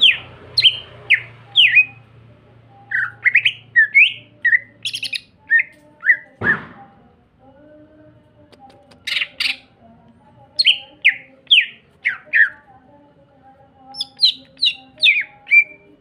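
Greater green leafbird (cucak ijo) singing in quick bursts of short, sharp notes that slide downward, broken by a few harsh rasping notes about nine seconds in. About six seconds in there is one long swoop that falls from high to very low.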